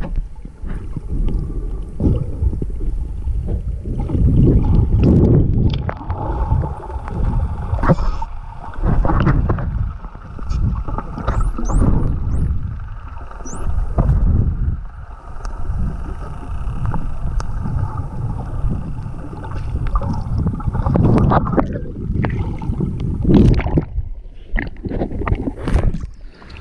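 Underwater sound on a snorkeler's camera: surging low rumble of moving water and bubbles, with a faint steady hum like a boat engine behind it. A few short, high rising whistles, typical of dolphins, come about eleven to fourteen seconds in.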